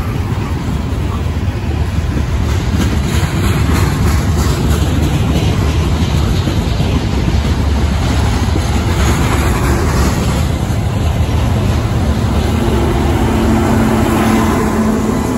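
Loaded freight hopper cars rolling past close by: a steady rumble and clatter of steel wheels on rail. About twelve seconds in, the steady hum of a CN diesel locomotive placed mid-train joins as it draws level.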